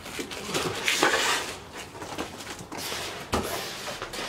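A long cardboard box being grabbed off the floor and handled, rustling and scraping, loudest about a second in, with a sharp knock a little after three seconds.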